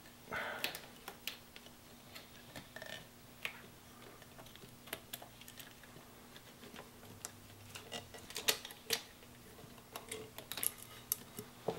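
Light, irregular metallic clicks and ticks from pliers and hose clamps being handled at a motorcycle's fuel hoses.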